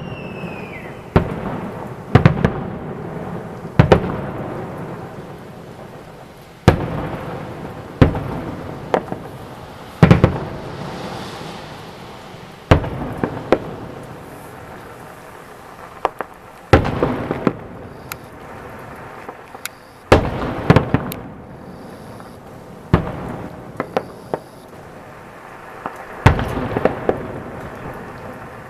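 Salute fireworks: aerial shells bursting in sharp booms every one to three seconds, sometimes two close together, each followed by a rolling rumble that dies away.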